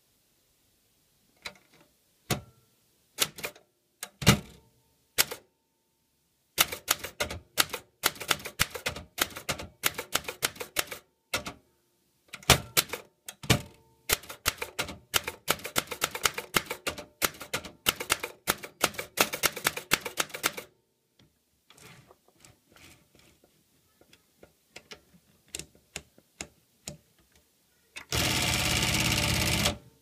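Manual typewriter being typed on: a few single keystrokes, then a long run of rapid key strikes, thinning to faint scattered clicks. Near the end there is a loud, steady stretch of noise lasting about two seconds.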